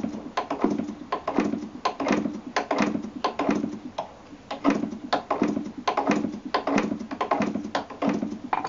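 Propeller of an Irvine 36 model glow engine flicked over again and again with a screwdriver, a short knock each time, about two a second. The engine turns over without catching.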